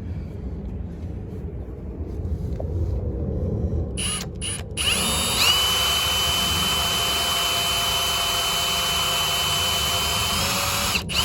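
Power drill with a 1/8-inch bit drilling screw holes in an RV screen door crossbar. About four seconds in there are a couple of short trigger pulls, then the drill runs at a steady speed with an even high whine for about six seconds before stopping near the end. Before the drilling there is a low rumbling.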